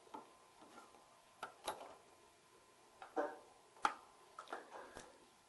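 Microphone retail packaging being opened by hand: a few faint, scattered clicks and short scraping rustles.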